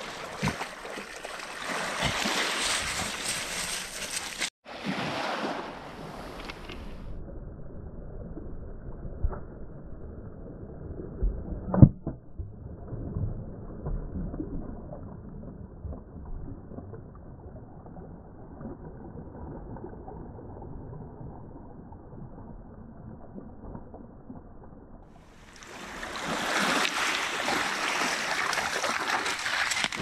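Small sea waves washing over a pebble shore, with water sloshing around a dog wading and nosing in the shallows for stones. Through the middle the sound goes dull and muffled, and a single sharp knock comes about twelve seconds in.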